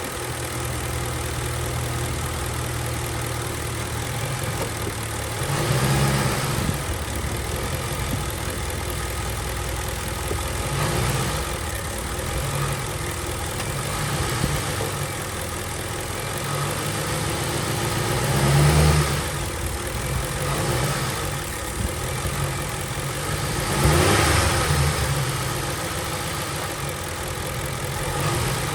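2007 Ford Crown Victoria's 4.6-litre V8 idling, with about five short presses of the gas that raise the engine speed briefly. The presses are made to bring out a passenger-side rattle that the owner hears only under throttle in gear, not in park or neutral.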